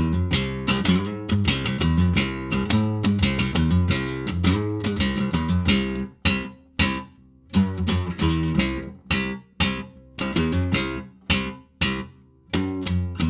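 Guitar music: a fast run of picked notes, then short, clipped chords with brief silences between them from about six seconds in until near the end.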